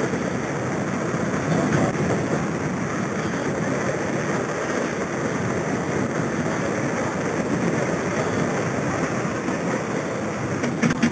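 Steady rumbling noise from a moving camera's microphone, wind and movement noise as it travels along the trail, with a few sharp clicks near the end.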